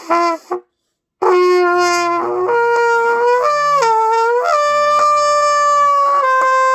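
Trumpet played by a learner: two short blasts, then after a brief pause a long held note that slides up and down between several pitches.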